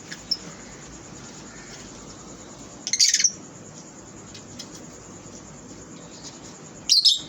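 Lovebirds calling: two loud, shrill squawks, one about three seconds in and one near the end, with a few faint chirps between.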